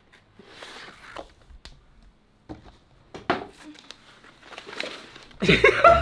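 Cardboard box and papers handled: soft rustles and a few light knocks. Near the end, loud background music with pitched notes comes in.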